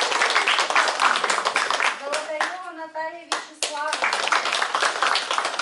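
A small audience clapping by hand in a small room, the claps thinning about two seconds in while a voice is heard, then picking up again.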